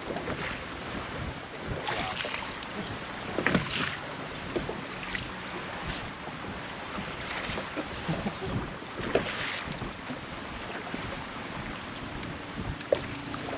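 Small waves lapping against a bass boat's hull, with wind on the microphone and a few short splashes from a hooked bass being played to the boat.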